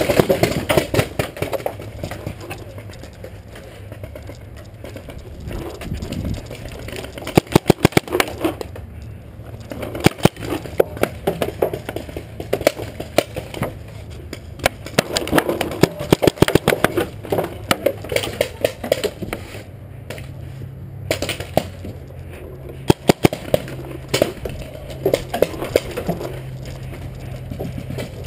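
Paintball markers firing: rapid strings of sharp pops, coming in several bursts, over the rustle of a player moving.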